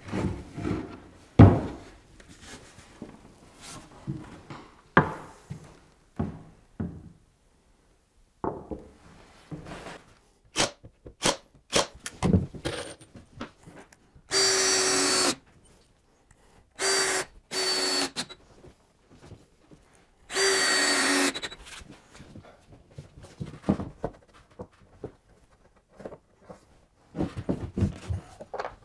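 Cordless DeWalt drill running in four short bursts, each about half a second to a second, as it drives screws into wood. Scattered knocks and thumps come between the bursts.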